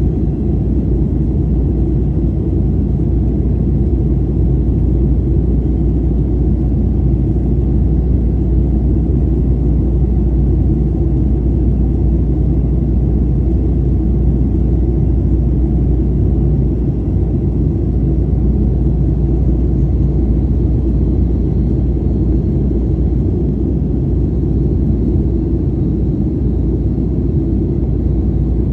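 Steady low rumble of a Boeing 737 in flight, heard from inside the passenger cabin: engine and airflow noise during the approach, with faint thin high tones over it.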